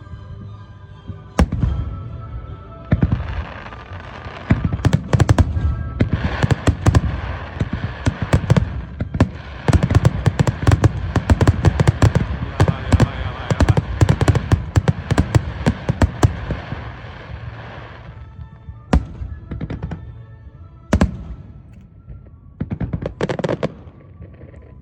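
Fireworks display: a single bang, then a fast barrage of many crackling bursts for about fifteen seconds, thinning out to a few separate bangs near the end, with music playing underneath.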